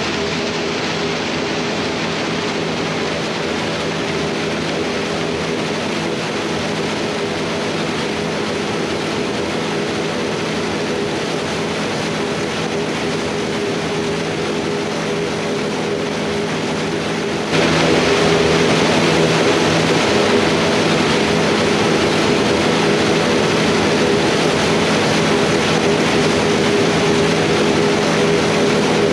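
Diesel tractor engine and corn silage machinery running steadily, a constant engine hum over even mechanical noise. It gets abruptly louder a little past halfway.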